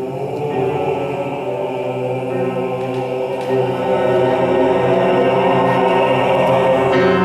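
Men's vocal ensemble singing a long held chord, swelling louder about halfway through.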